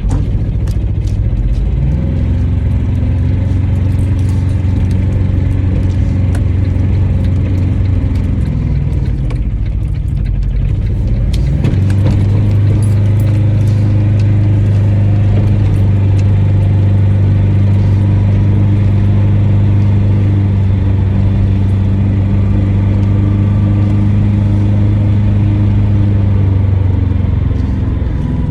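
A licence-free microcar's engine and drivetrain heard from inside the cabin while driving: a loud, steady drone that picks up about two seconds in. It sags around ten seconds in, rises again a couple of seconds later and holds steady, then eases off near the end.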